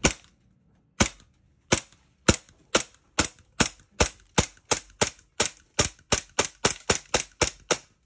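E&C G17 gas blowback airsoft pistol firing about twenty shots, each a sharp crack with the metal slide cycling. The shots start about a second apart and speed up to about four a second. They stop when the magazine runs dry and the slide locks back.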